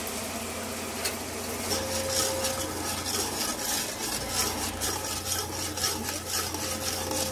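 Steel spoon stirring and scraping ground onion-tomato masala paste as it fries in oil in an aluminium pot, in repeated scraping strokes over the sizzle of the paste.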